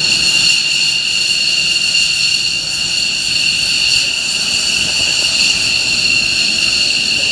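Mitsubishi F-15J fighter's twin F100 turbofan engines running at taxi power as it taxis past: a steady, high-pitched turbine whine made of several tones over a jet hiss.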